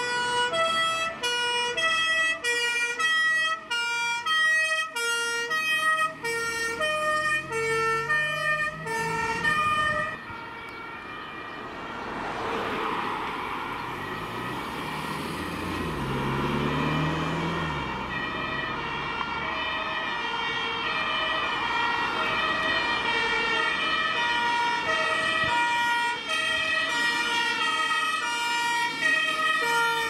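Two-tone sirens (Martinshorn) of German fire engines on an emergency run, alternating between a high and a low note. About ten seconds in, the siren breaks off and a vehicle engine rises and falls as it passes close by. Then a second two-tone siren starts up, changing notes more slowly.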